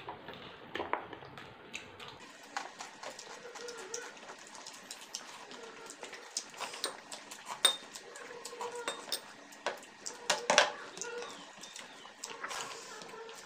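Eating sounds from two people eating biryani by hand off plastic plates: scattered small clicks, taps and mouth sounds, with a couple of louder clicks about two thirds of the way through.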